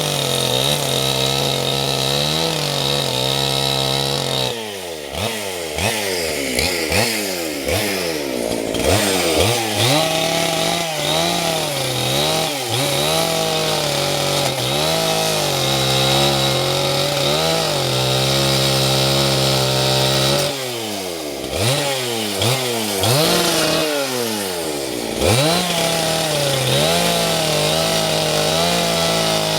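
Husqvarna 268 XP two-stroke chainsaw running at high revs, its pitch sagging and recovering as the chain cuts through wood. Twice, about five seconds in and again about two-thirds through, the throttle is let off and blipped, and the engine pitch drops and climbs several times in a row.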